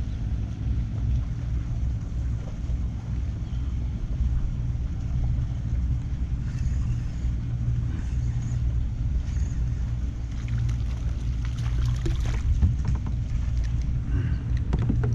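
Steady low hum of a motor, with light clicks and taps in the last few seconds.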